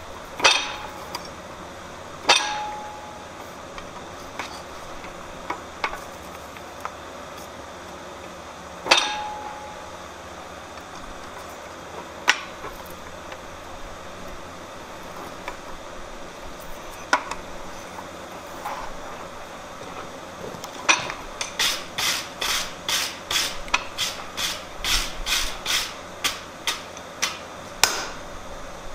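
Fly press and its tooling striking hot steel bar stock: a handful of sharp metal clanks several seconds apart, two of them with a short ring, as holes are punched in the bar. Near the end comes a quick run of lighter metal-on-metal strikes, about three a second, for several seconds.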